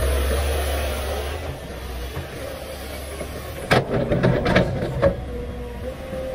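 Komatsu PC500LC excavator's diesel engine running, its drone easing off after about a second and a half. Nearly four seconds in, a cluster of sharp clanks and scrapes for about a second and a half as the bucket digs into rocky ground.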